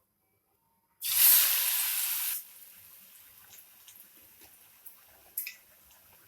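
Bottle gourd vadas frying in hot oil: a sudden loud sizzle about a second in that drops after a second and a half to a quieter steady crackle with scattered pops.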